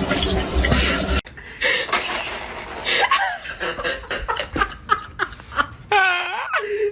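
People laughing in repeated short bursts, starting after an abrupt cut about a second in, with a longer drawn-out vocal sound near the end.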